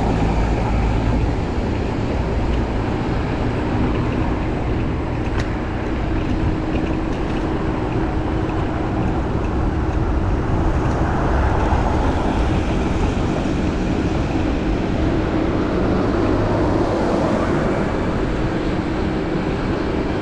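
Busy road traffic: a continuous rumble of passing cars and buses and road noise, with a steady low engine hum joining about four seconds in.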